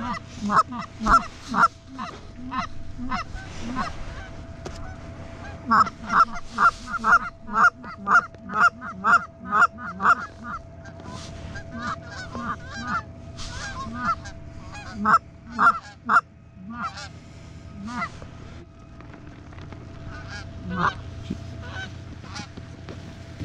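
Canada goose honking: runs of quick, loud honks and clucks, about two a second, that come in bursts and pause between them.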